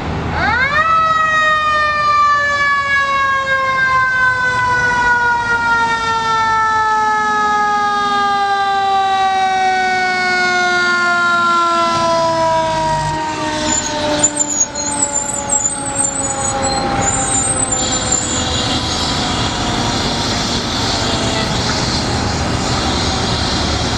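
A fire engine's siren winds up sharply, then winds down in one long, slowly falling wail as the engine drives past, with its engine running underneath. A hiss comes in near the end.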